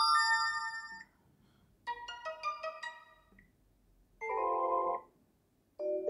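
Sony Xperia 1 VI notification sounds previewing one after another: a bright chime about a second long, then a quick run of bell-like notes about two seconds in, then a lower, fuller chime about four seconds in.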